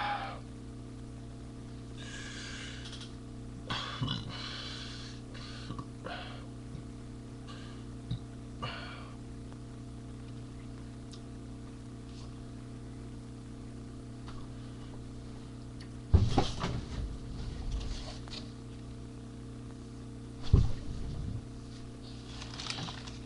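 A steady low electrical hum, with scattered short rustles and clicks and two loud low thumps or rumbles, one about two-thirds of the way in and one shortly after.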